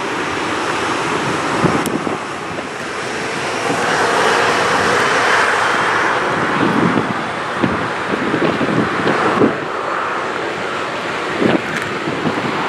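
Jet engines of an Airbus A220-300 running at taxi power, a steady rush that swells somewhat in the middle, under wind buffeting the microphone in low gusts.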